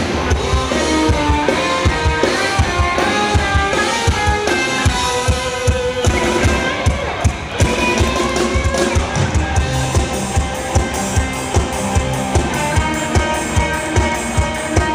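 Live rock band played loud through a PA: electric guitars, bass, keyboard and a drum kit keeping a steady beat.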